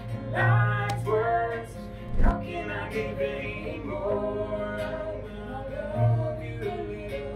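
A woman singing a song to an acoustic guitar played alongside her, with a single thump about two seconds in.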